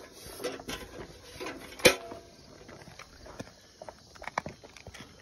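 Angus heifer chewing dry range cubes: irregular crunching and cracking as the hard cubes break, with one loud crack about two seconds in.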